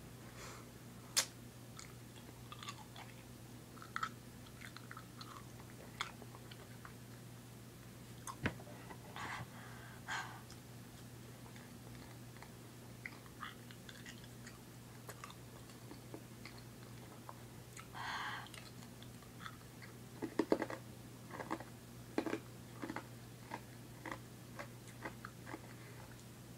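An ice cube being chewed and crunched in the mouth: irregular sharp crunches and wet mouth clicks, scattered unevenly, over a faint steady low hum.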